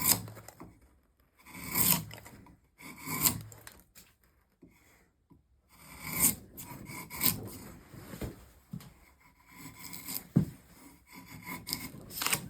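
Drawknife shaving a spruce stool leg held in a vise: a series of separate rasping cutting strokes, roughly a second apart, with a pause of about two seconds in the middle and a short sharp knock later on.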